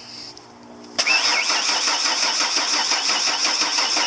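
Starter cranking a 1993 Ford E250 Econoline van's engine, kicking in suddenly about a second in and turning it over in an even rhythm without it firing. The no-start is a fuel delivery problem, which the owner takes for a bad fuel pump.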